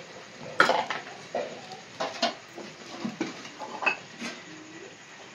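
Light, scattered clinks and knocks of metal utensils against an aluminium cooking pot and a steel plate.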